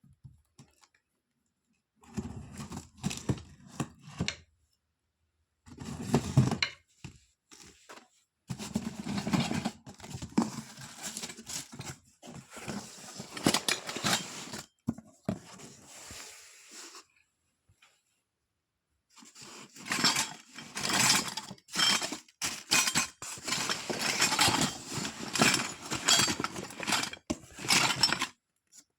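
Toy packaging being unboxed by hand: plastic and cardboard rustled, crinkled and torn, with small clicks and clinks of the plastic toy kitchen pieces. It comes in irregular bursts with a few short pauses.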